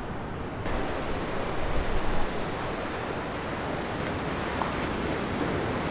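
Ocean surf washing steadily, with wind buffeting the microphone in low rumbling gusts during the first couple of seconds.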